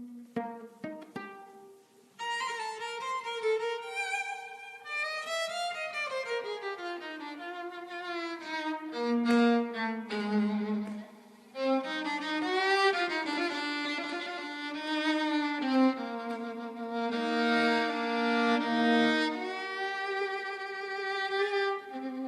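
Solo violin break: a few plucked notes, then a bowed melody with vibrato and sliding notes starting about two seconds in.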